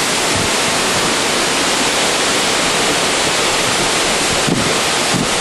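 Steady, loud rushing of hurricane wind and driving rain, heard from inside a truck that is being rocked by the gusts.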